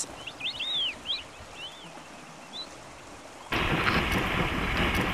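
Brown bear charging and splashing through shallow stream water while fishing: a loud rush of splashing that starts suddenly about three and a half seconds in. A few faint, high, short chirps come before it.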